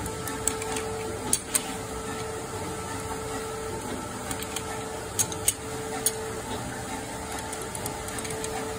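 A machine hums steadily, its tone dropping out briefly every few seconds, with scattered sharp clicks and taps.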